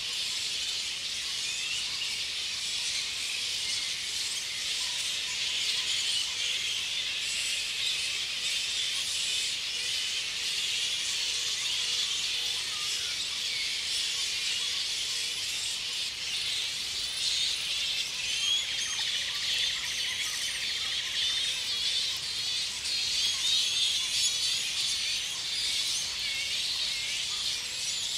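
A roosting flying fox colony chattering and squealing, many overlapping high-pitched calls at once, growing a little louder past the middle.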